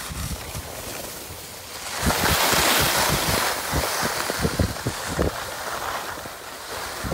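Skis sliding and scraping over packed snow, with wind buffeting the microphone; the hiss swells loudest from about two to five seconds in, over a run of low thumps.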